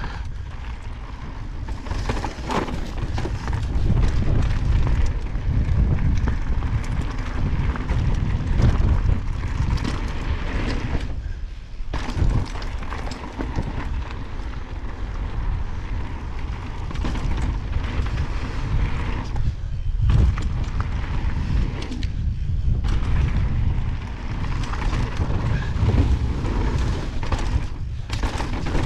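Evil Wreckoning full-suspension mountain bike descending a loose rocky gravel trail at speed: tyres crunching over stones and the bike rattling over constant small impacts, under heavy wind buffeting on the microphone. It eases off briefly a few times.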